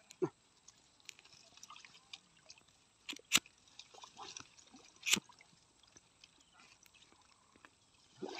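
Quiet water dripping and small splashes, with two sharper splashes about three and five seconds in.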